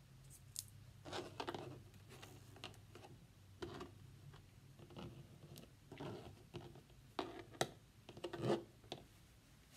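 Handling noises from weaving materials: scattered short rustles and light clicks as hands work thread and a pencil heddle rod, with a few louder taps near the end.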